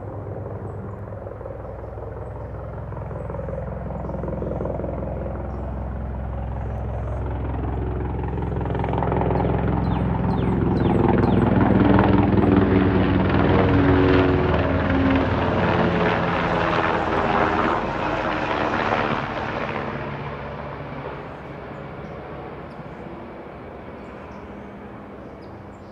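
Sikorsky UH-60 Black Hawk helicopter passing low overhead, its twin turboshaft engines and rotor running with a rapid rotor thudding. It grows louder to a peak about halfway through, then fades as it flies away.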